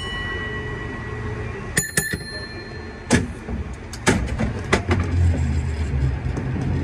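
San Francisco cable car bell struck twice in quick succession about two seconds in, ringing on clearly, followed by a few sharp metallic clanks and a low rumble building as the car starts to move.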